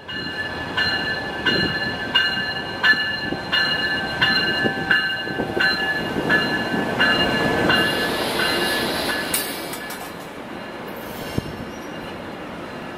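A Coaster commuter train's Siemens Charger diesel locomotive passes with its bell ringing about one and a half strikes a second. The bell stops about eight seconds in, and the train's rumble and wheel noise fade as it pulls away.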